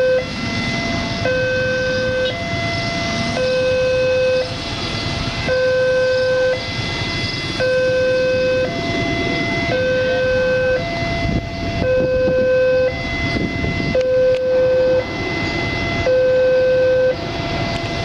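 Railway level-crossing warning alarm sounding continuously: an electronic two-tone signal alternating between a lower and a higher tone, each held about a second, warning that a train is approaching.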